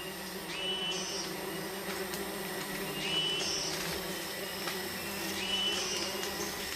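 A swarm of sweat bees buzzing in a steady hum around their damaged nest. A short high chirp repeats in the background about every two and a half seconds.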